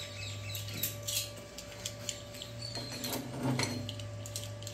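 Light clinks and knocks of a welded steel coupon and locking pliers being handled on a steel welding table, over a steady low electrical hum.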